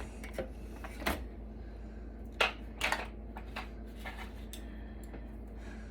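Scattered light clicks and knocks of hands handling the metal and plastic parts of a rack server being dismantled, the loudest a little over two seconds in, over a faint steady hum.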